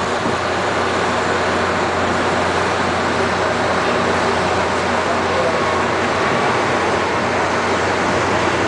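Airbus A380 airliner's four jet engines making a steady, loud noise as the aircraft flies a low banking pass.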